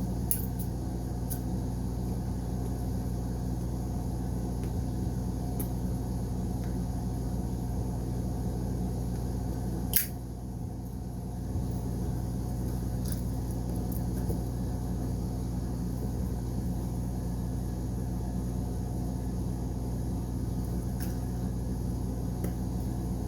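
Steady low mechanical hum, even throughout, with one sharp click about ten seconds in.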